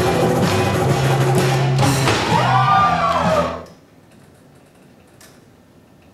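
Guitar-led music that cuts off suddenly about three and a half seconds in, leaving quiet room tone with a faint click.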